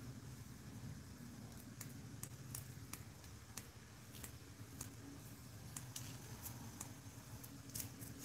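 Fine glitter being sprinkled from a small plastic cup onto a tumbler: faint, irregular light ticks over a low steady hum.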